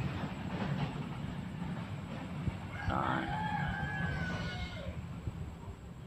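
A rooster crowing once, a single drawn-out call of about two seconds, about three seconds in.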